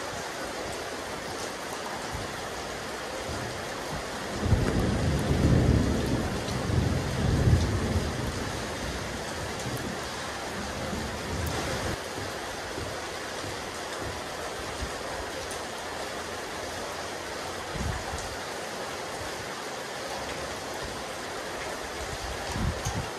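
Steady rain falling on a rooftop terrace, an even hiss. About four seconds in, a low rumble swells for around three seconds and fades.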